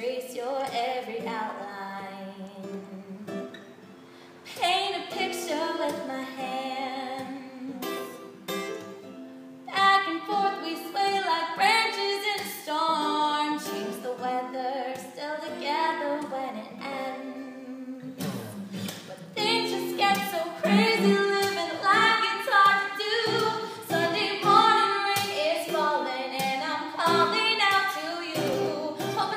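A woman singing a song to a plucked acoustic guitar accompaniment, the voice coming in more strongly about four seconds in.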